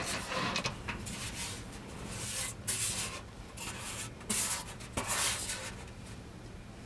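Hands rubbing and scraping against the metal panels and leg of a fire-table pedestal while washers and nuts are threaded onto studs by hand, with a few sharp metal clicks.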